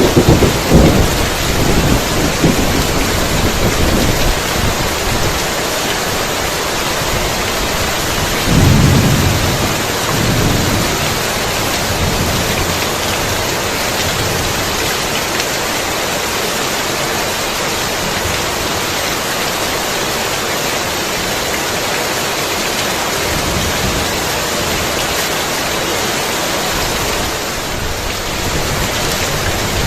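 Heavy rain pouring steadily, with rolls of thunder: a rumble at the start that fades over the first few seconds and another about nine seconds in.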